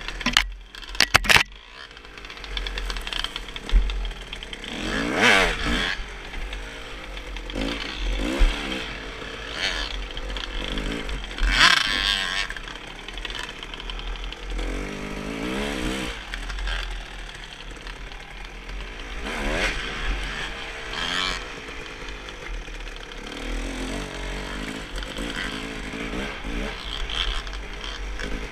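Dirt bike engine revving up and down as it is ridden over rough ground, its pitch rising and falling again and again. Wind and sharp knocks hit the bike-mounted microphone, with knocks about a second in.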